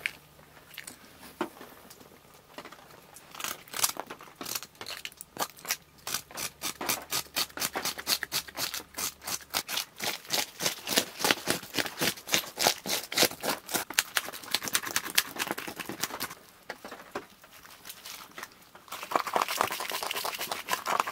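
Fast, repeated scraping strokes, about four a second, as the scales are scraped off a crappie's sides. A denser, steadier scraping comes near the end.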